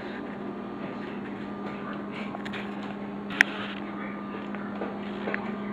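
Steady room hum and hiss with one sharp click about three and a half seconds in.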